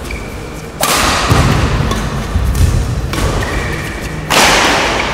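Badminton rally: two loud racket strikes on the shuttlecock, about a second in and again near the end, each ringing on in the echo of a large hall.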